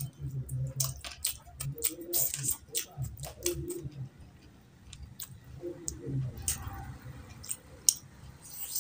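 A person eating rice and curry by hand: close-miked wet chewing and lip smacking, with many short sharp clicks.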